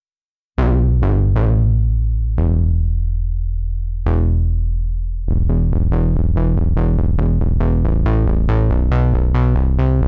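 Cherry Audio Elka-X software synthesizer, an emulation of the ELKA Synthex analog synth, playing a factory preset. After a brief silence it sounds a few separate bass-heavy notes whose brightness fades, then from about five seconds in a quick repeating pattern of notes.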